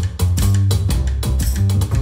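Jazz trio music led by a double bass played pizzicato, with strong low plucked notes, over electric guitar and regular drum and cymbal strokes.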